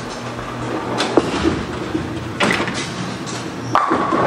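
Bowling ball rolling down the lane, then crashing into the pins about a second in, followed by further sharp clatters of pins and alley machinery a second or so apart.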